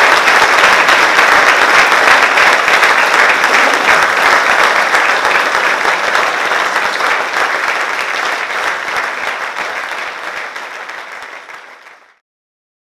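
Audience applauding, loud and sustained at first, then fading away over the last several seconds and stopping abruptly about twelve seconds in.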